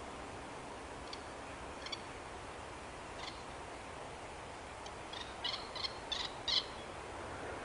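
Short bird calls over steady background noise: a few single calls spaced out, then about five in quick succession from about five seconds in, the last of them the loudest.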